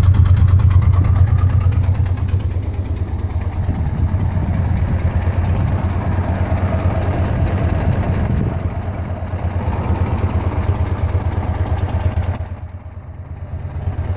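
Massey Ferguson MF65 tractor's four-cylinder Continental G176 gas engine idling steadily, briefly quieter about twelve and a half seconds in. It is a worn engine that burns oil heavily, smoking and bubbling oil out of the exhaust.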